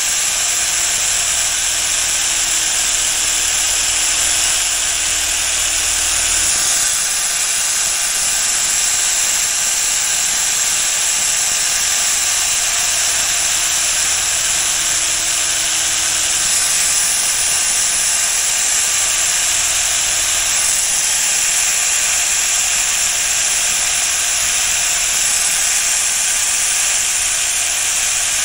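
A power sanding tool working against the steel blade of a pair of Heinisch tailor's shears, resurfacing it: a steady grinding hiss. A low hum underneath stops about six and a half seconds in.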